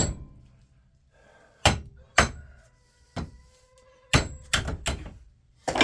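Hammer blows on a small transformer, knocking it apart for its copper: about seven sharp metal strikes at uneven spacing, with a faint ringing between them.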